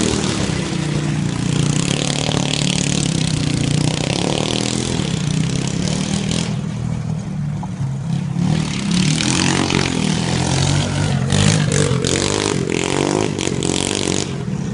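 A vehicle engine running, its speed rising and falling.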